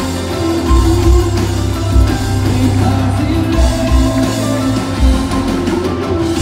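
A live band playing amplified rock-style music: electric guitar, keyboard, a heavy bass line and drums, loud and steady.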